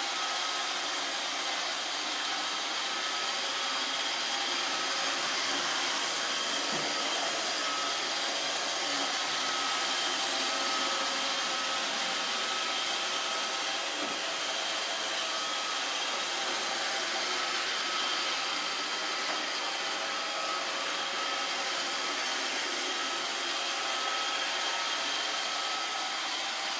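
Roomba 555 robot vacuum cleaner running steadily, a constant whirring hiss with a few steady high tones on top.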